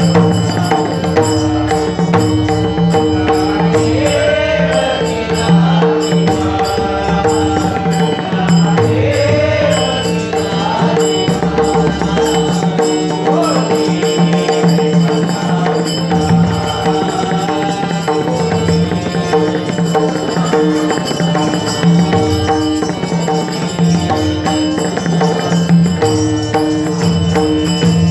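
Marathi devotional abhang sung by a male voice to pakhawaj drumming, over a steady held drone.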